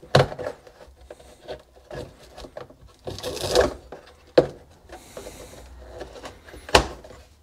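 Air inlet boot being pushed and worked through the opening in a KTM 250 SX's plastic air filter box: rubbing and scraping of the parts against each other, a longer scrape about three seconds in, and several sharp knocks.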